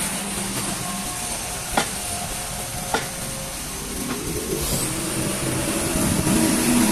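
Heavy diesel vehicle engine running, with two sharp knocks early on, then growing louder from about halfway through as the engine note rises.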